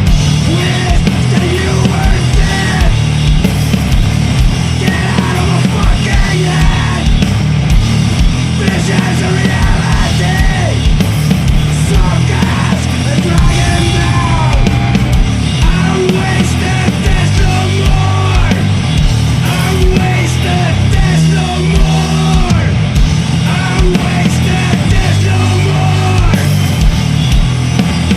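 Sludge metal music: heavily distorted guitars and bass with drums, played loud and dense throughout.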